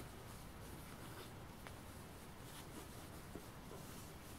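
Faint handling of a soft shell jacket: a short click at the very start, then a few light scratchy touches on the fabric over quiet room tone.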